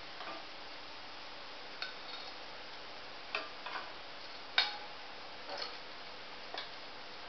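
A steel ladle clinking lightly against a steel bowl of sugar syrup holding gulab jamuns, about eight irregular clicks with the sharpest a little past halfway, over a faint steady hiss and hum.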